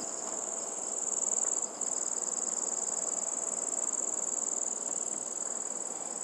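Steady high-pitched insect trill, breaking off briefly about one and a half seconds in, over faint noise from a spatula stirring thick halwa in a steel pan.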